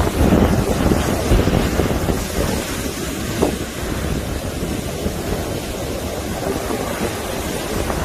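Waves of a rough sea breaking and washing up a sandy beach: a steady wash of surf, loudest in the first couple of seconds, with wind buffeting the microphone.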